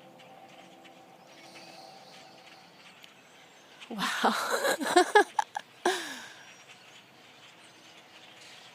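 Faint, rain-like chirping of a large flock of tiny birds flying over. About four seconds in, a loud wavering call of some two seconds cuts through, its pitch bending up and down and falling at the end.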